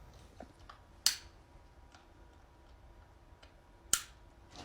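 Two sharp plastic clicks about three seconds apart, with a few faint ticks between: electrical connectors being snapped onto the fuel injectors.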